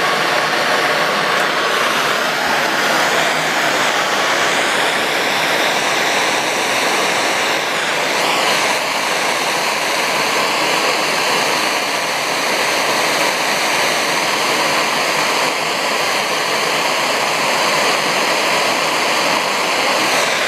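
MAP gas torch flame hissing steadily while heating a copper pipe and fitting for soldering.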